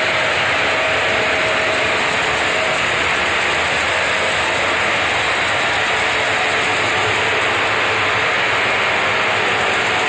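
Large horizontal band sawmill with a wide hard-alloy-toothed blade running and cutting lengthwise through a big hardwood log. It makes a steady, even noise throughout.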